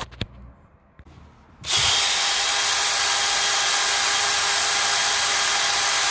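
Cordless drill spinning a small wire brush against a brass window stay to strip the remaining paint: a steady whir with a harsh scrubbing hiss that starts about a second and a half in and cuts off suddenly at the end. A few light clicks come before it.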